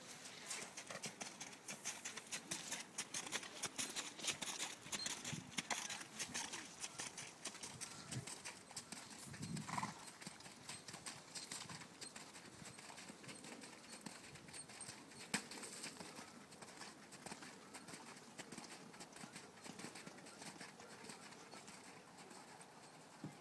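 Faint hoofbeats of a ridden Irish Draught Sport Horse moving over wet, muddy arena footing. The irregular footfalls are loudest in the first half and fade as the horse moves off, with a brief louder sound from the horse about ten seconds in and a single sharp click about fifteen seconds in.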